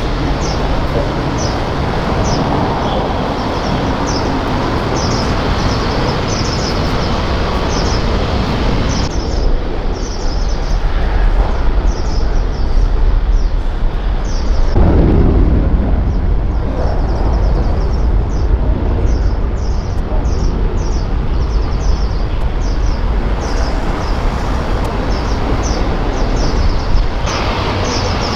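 Jet aircraft passing close by: a loud, deep rumble of engine noise that builds through the first half, peaks about halfway with a sweeping rise and fall in pitch, and eases near the end.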